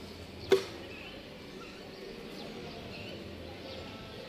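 A single sharp knock about half a second in, a long-handled garden hoe hitting the dug earth. Faint bird chirps follow over a steady outdoor background.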